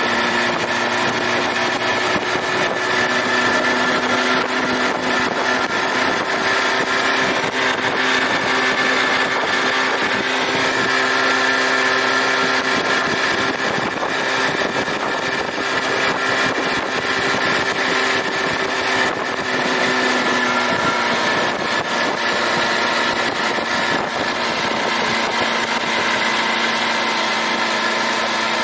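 An old outboard motor running steadily as the boat moves upriver. The engine note steps up slightly a few seconds in and drops back about two-thirds of the way through.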